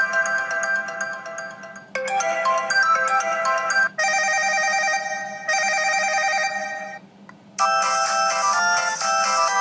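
ZTE Overture smartphone ringtones previewed one after another. A short melodic tune repeats about every two seconds, then about four seconds in a different trilling ring plays twice, and after a brief gap near the end a third, busier tune starts.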